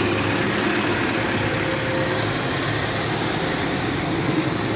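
Double-decker bus engine running steadily as the bus drives past close by and pulls away.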